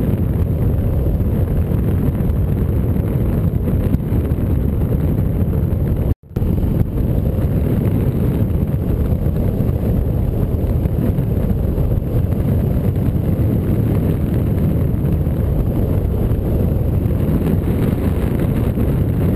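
Wind buffeting the microphone of a wing-mounted camera on a hang glider in flight: a steady low rumble of rushing air. The audio drops out for a moment about six seconds in.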